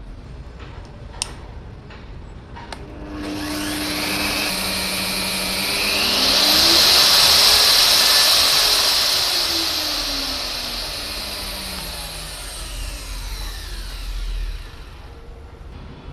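Cayken SCY-50HD 1700 W magnetic drill's motor running after two sharp clicks, starting about three seconds in. Its pitch rises and then falls again as the variable speed changes, loudest in the middle, before it cuts off near the end.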